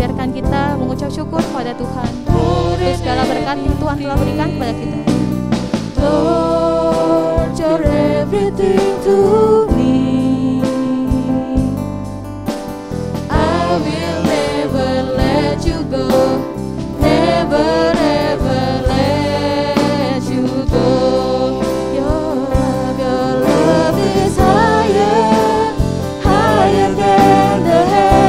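Live contemporary worship band playing a praise song: several voices singing in unison over drum kit, acoustic guitar, bass guitar and keyboard.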